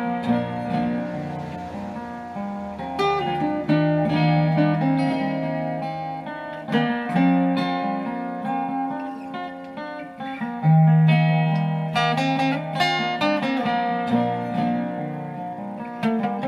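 Background music: a solo acoustic folk guitar improvisation, plucked notes and chords that start sharply and die away.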